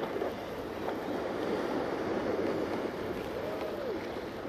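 Choppy water sloshing against a Hobie Pro Angler 12 kayak hull, with wind on the microphone, a steady wash. A faint brief tone rises and falls about three and a half seconds in.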